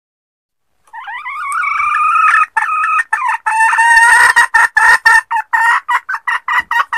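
Red junglefowl hen calling: about a second in, one drawn-out note, then a long run of short repeated cackling notes that come quicker and shorter toward the end.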